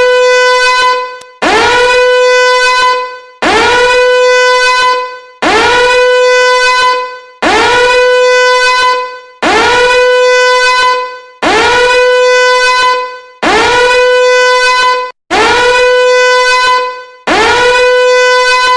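A loud horn-like alarm tone sounding in repeated blasts, about one every two seconds, each sliding up in pitch at the start and then holding one steady note before a short break.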